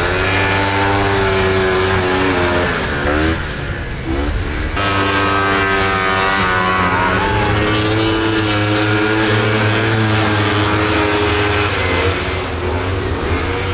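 Several vintage racing snowmobiles' two-stroke engines running hard at high revs as the sleds race past together. Their revs drop and climb back up about three to four seconds in, and again near the end.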